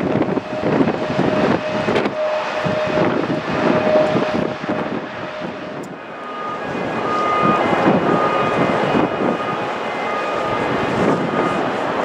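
Jet airliner engines whining during landing, mixed with strong gusting wind buffeting the microphone. About halfway through, the sound changes to a steadier engine noise with a higher whine that comes and goes.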